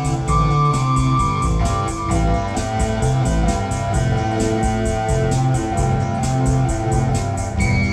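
Korg iS40 synthesizer keyboard playing an accompaniment. A steady drum beat ticks about four times a second under a bass line and held organ- and guitar-like chords. A high held note enters near the end.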